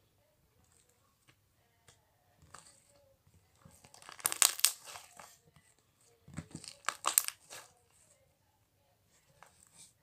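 Fluffy marshmallow slime being squeezed and stretched by hand. It gives two bursts of crackling, popping squishes, about four and about seven seconds in.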